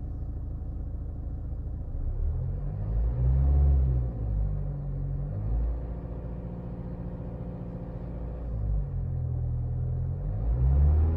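Toyota RAV4's four-cylinder diesel engine heard from inside the closed, sound-insulated cabin. It idles steadily, is revved about two seconds in, holds at raised revs for a few seconds, drops back and is revved again near the end.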